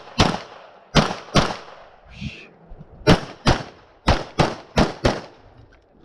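Glock 34 9 mm pistol firing nine shots, mostly in quick pairs about a third of a second apart, with a pause of about a second and a half after the third shot.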